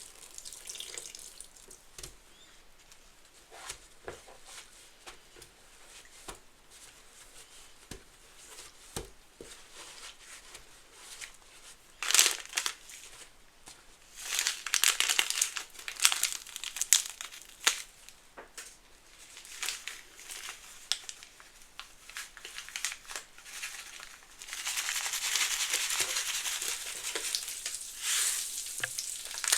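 Soapy suds in a sponge soaked with Fabuloso cleaner and Mr. Bubble bubble bath, crackling and fizzing as the sponge is squeezed. The crackles are faint and scattered at first, then grow louder and denser in bursts from about twelve seconds in. Near the end comes a steady fizzing hiss lasting a few seconds.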